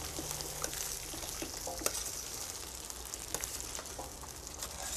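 Duck carcass pieces and vegetables sizzling steadily in duck fat in a metal roasting pan on a gas barbecue. Metal tongs click now and then as they turn the pieces.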